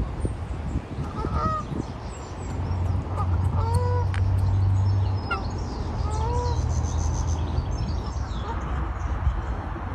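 A water bird calling: a few short calls spaced a couple of seconds apart. Under them runs a low rumble from about three seconds in until near the end.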